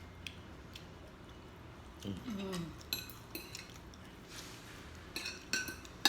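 Cutlery clinking against a plate while eating: a few light clicks at first, then a run of sharp, ringing clinks near the end. A brief vocal sound with falling pitch comes about two seconds in.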